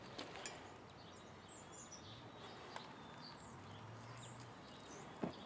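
Faint outdoor ambience: small birds chirping in the distance, with a few short light clicks, the clearest one near the end, and a brief low hum twice in the middle.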